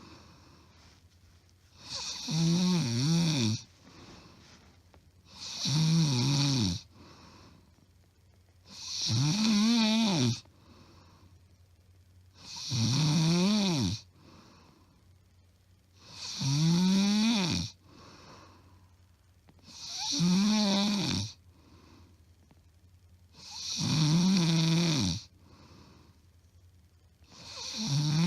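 A woman's loud snoring, recorded close up: eight harsh snores at an even pace, one every three and a half to four seconds, each rising then falling in pitch, with soft breaths between. The uploader says it is plain snoring, not sleep apnea.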